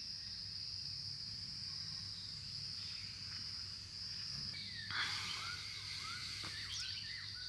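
A steady high-pitched trilling from a chorus of insects, with no break. About five seconds in, a few short chirping calls join over it.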